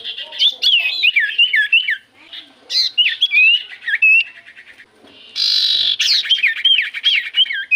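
Common iora (cipoh) singing energetically: rapid runs of sharp whistled notes that sweep downward, in three bursts. A short harsh, noisy call comes about five and a half seconds in.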